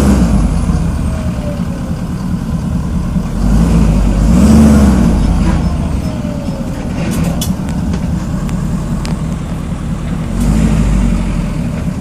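Ford 6.7L Power Stroke V8 turbo-diesel rumbling and revving briefly twice under throttle while in gear. Between the revs come a few sharp metallic pings from under the truck, a sporadic noise that happens only in drive or reverse. The owner suspects a driveshaft U-joint.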